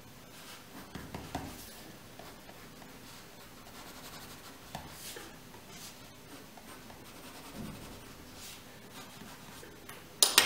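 Pencil scratching on drawing paper in short, faint strokes and sweeps. About ten seconds in, a sudden louder clatter of pencils as one is picked out of a tray.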